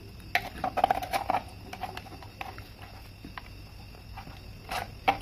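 Light clicks and scrapes of a neon tester screwdriver's metal tip being pushed into the holes of a plastic extension-board socket, a cluster about a second in and a few more near the end.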